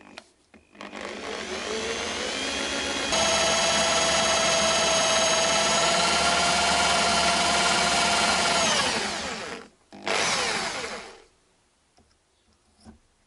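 Electric drill boring a pilot hole into a seized screw on an alternator, ready for a stud extractor. The motor runs up, speeds up about three seconds in and whines steadily for about six seconds, then winds down. A short second burst follows and also winds down.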